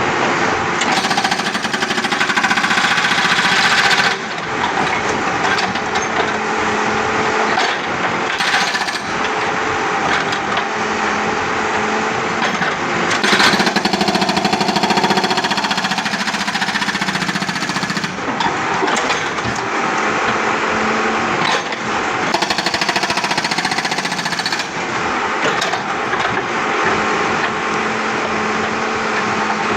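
Backhoe-mounted hydraulic breaker hammering continuously into a 5-inch concrete slab, a loud, rapid chatter of blows. Its sharp, bright top end comes and goes every few seconds.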